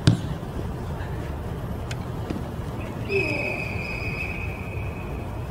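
A sharp thump at the very start, then about three seconds in a long, steady referee's whistle blast lasting about two seconds, over a constant low background rumble.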